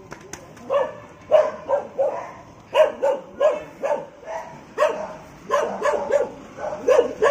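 A dog barking repeatedly in quick runs of two to four sharp barks, with short pauses between runs.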